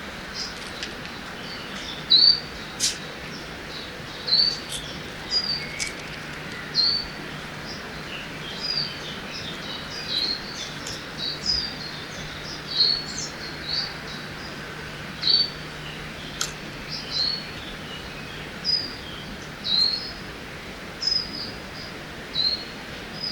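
Bird calls: short, high chirps repeated about once a second, over a steady, even rush of river water.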